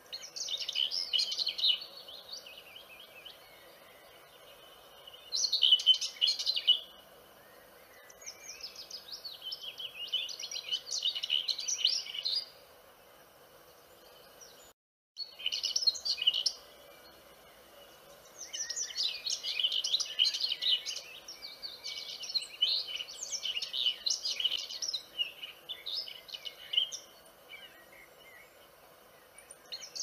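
Vernal hanging parrots calling in bursts of rapid, high-pitched chirping twitters, phrases of one to three seconds with short pauses between, over a faint steady high tone. The sound cuts out briefly about halfway through.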